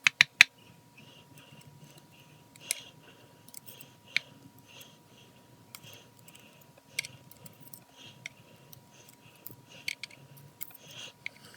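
Small metal clicks and taps from the pins and parts of a U-Change mortise lock cylinder being pulled out and handled during disassembly. A few sharp clicks come together just after the start, then single clicks every second or two.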